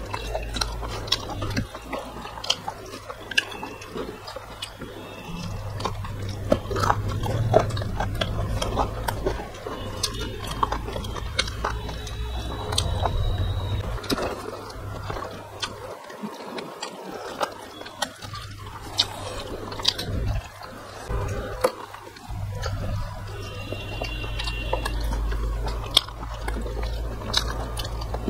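Two people chewing and biting as they eat rice, fish and chicken by hand, picked up close by the microphone, with many short sharp clicks throughout.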